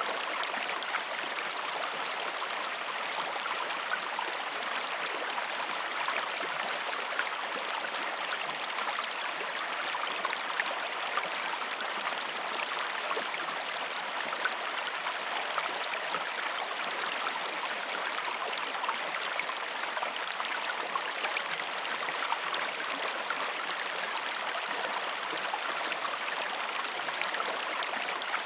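River water running over stones: a steady, even rush and babble with fine splashing.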